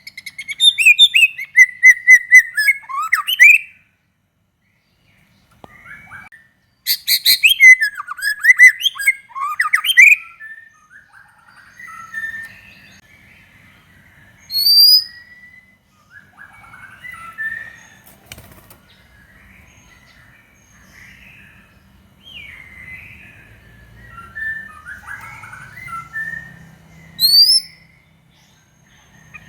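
White-rumped shama singing: loud bursts of fast whistles, trills and clicking notes at the start and again about seven seconds in, then quieter scattered phrases with a few sharp rising whistles.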